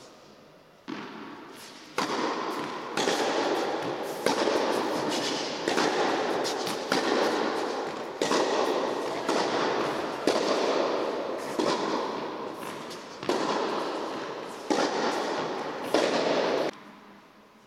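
Tennis ball struck by rackets in a rally, sharp pops about once a second, each followed by a long echo from the big indoor tennis hall. The hits stop about a second before the end.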